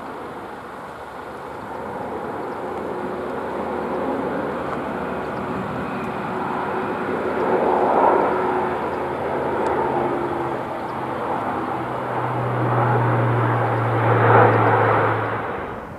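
Airbus A350's twin Rolls-Royce Trent XWB turbofan jet engines running as the airliner taxies onto the runway, a steady roar that grows louder with a low hum swelling near the end, then drops away abruptly.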